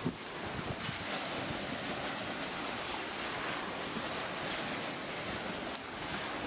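Steady rushing noise of wind and surf, with wind buffeting the microphone.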